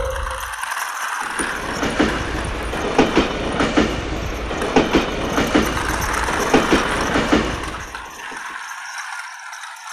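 Toy bullet train running on a plastic track: a steady whirring rush with sharp clicks every second or so as it crosses the track, growing quieter near the end.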